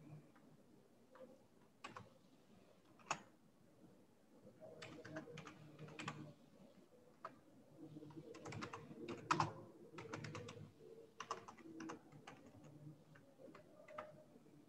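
Typing on a computer keyboard: faint, irregular keystrokes, scattered at first and then in quick clusters through the middle, with short pauses between.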